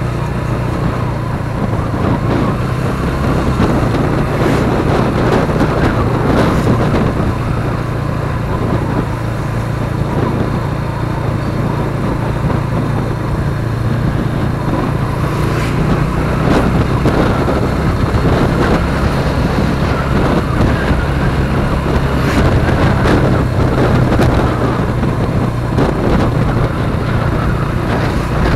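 Motorcycle engine running steadily while riding along, with wind and road noise on the camera's microphone.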